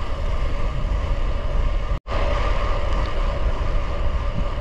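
Wind rushing over the microphone and the steady hum of gravel-bike tyres rolling on the road while riding. The sound drops out for an instant about two seconds in.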